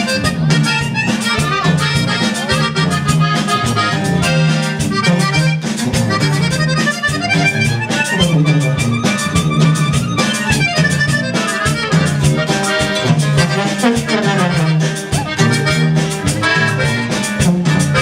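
Norteño band playing, led by accordion over a steady, rhythmic bass line, as the group runs its sound check.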